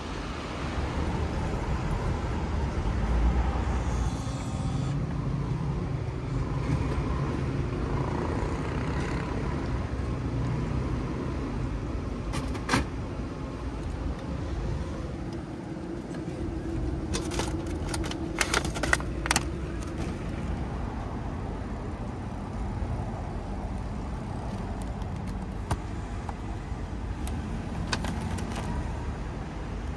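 Outdoor street ambience: a steady low rumble of road traffic, with a few sharp clicks and taps about halfway through and a short cluster of them a few seconds later.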